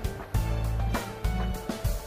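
Background music with a drum beat and sustained bass notes.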